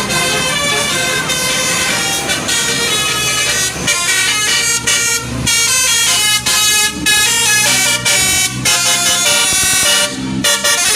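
Bus 'telolet' (basuri) multi-tone air horns playing a quick melody, the notes stepping from pitch to pitch with a few short breaks between phrases.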